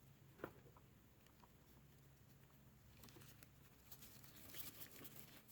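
Near silence: a few faint, soft clicks of wires and a plastic wiring-harness connector being handled, one sharper about half a second in, over a low steady hum.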